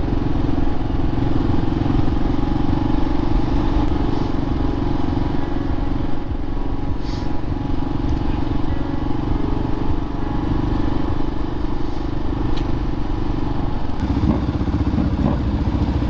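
Motorcycle engine running steadily while riding. Its note changes about two seconds before the end.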